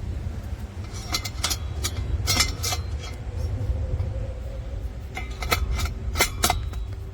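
Metal parts clinking and rattling in about seven sharp knocks, scattered unevenly, over a steady low rumble.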